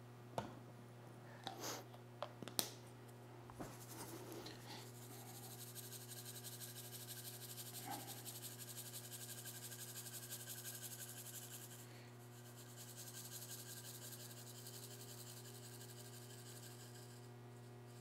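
A few sharp clicks as the plastic cup and seed shaker are handled, then the soft, rapid rattle of basil seeds being shaken out of a plastic seed shaker onto coco coir, faint and continuous for several seconds, easing off and returning more faintly near the end. A steady low hum runs underneath.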